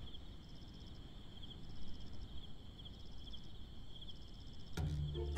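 Crickets chirping steadily in a continuous, finely pulsing trill. Near the end, a low musical note comes in under them.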